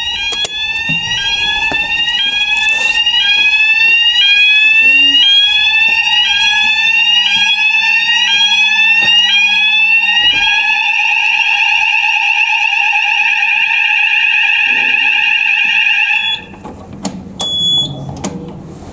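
Electronic fire alarm sounders going off during a system test: a rising sweep tone repeating about once a second over a steady lower tone, switching about ten seconds in to a continuous steady tone, then cutting off suddenly about sixteen seconds in.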